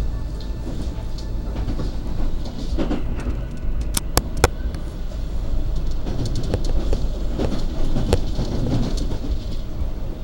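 Argo Bromo Anggrek express passenger train running at speed. Its wheels make a steady low rumble on the rails, with sharp clicks as they cross track joints, the loudest a pair a little over four seconds in and a scatter more a couple of seconds later.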